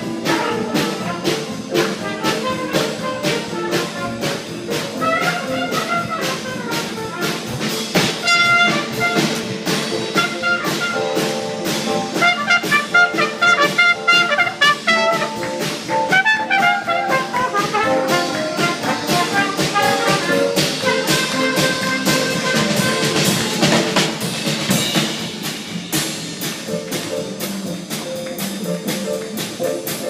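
Live jazz band playing, with a trumpet out front over a steady drum beat.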